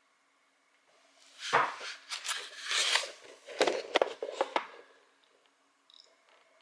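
Handling noise: clattering and scraping with several sharp knocks for about three and a half seconds, starting about a second in.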